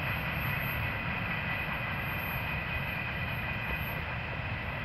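Freight train moving away down the line: a steady low rumble of the train rolling over the rails, with a thin steady high whine over it, slowly fading.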